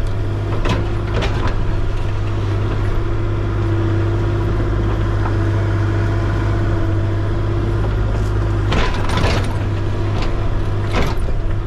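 An engine running steadily, with a few sharp clanks about a second in, around nine seconds in and near the end.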